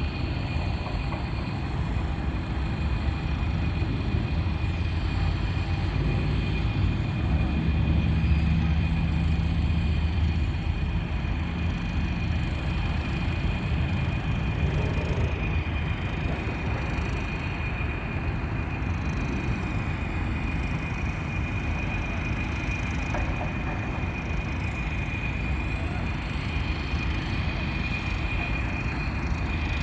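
Steady rumble of a moving vehicle, louder for a few seconds near the start, with a constant high-pitched whine running over it.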